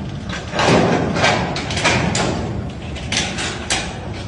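Repeated irregular knocks and rattles, a door being shaken and banged against its lock.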